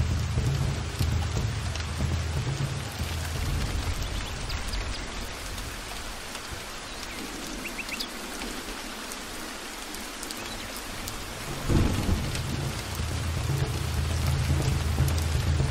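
Heavy rain falling steadily, with low rolling thunder that dies away toward the middle. About twelve seconds in, a sudden thunder crack brings the rumble back.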